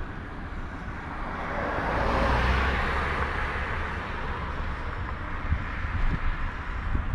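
A motor vehicle passing on the road, its tyre and engine noise swelling to a peak about two and a half seconds in and then fading, over a steady low wind rumble on the microphone.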